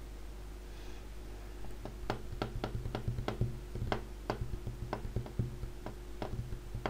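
Irregular clicking of a computer mouse and keyboard, a few sharp clicks a second, starting about two seconds in, over a low steady hum.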